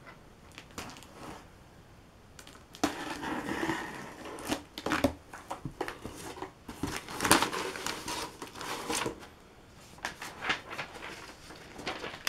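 A blade slicing the packing tape along a cardboard shipping box's seam and the cardboard flaps being pulled open, giving uneven scraping, tearing and rustling. After a few quiet clicks it picks up about three seconds in, with several sharp louder rips.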